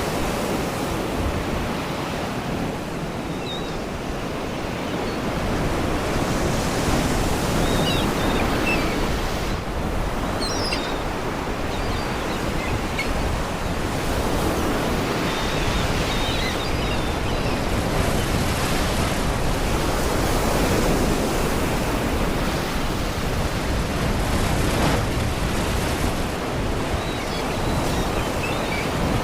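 Sea waves washing against rocks, a continuous surf that swells and eases every few seconds, with faint seagull cries now and then.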